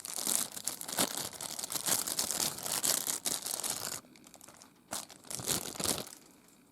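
Packaging crinkling and rustling as it is unwrapped by hand, for about four seconds, then a short pause and a couple more brief crinkles near the end.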